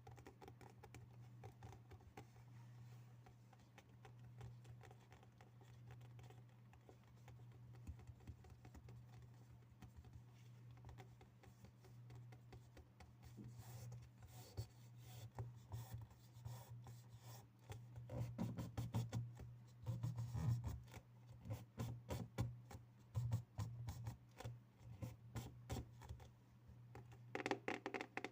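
Fingers tapping and scratching on objects, soft and sparse at first, then quick taps that come thicker and louder from about halfway. A low steady hum runs underneath.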